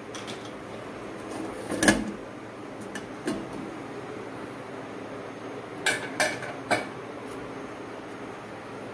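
Stainless steel pressure cooker being opened: metal knocks and clinks as the lid is twisted off and handled, with a loud knock about two seconds in and three quick clinks about six seconds in.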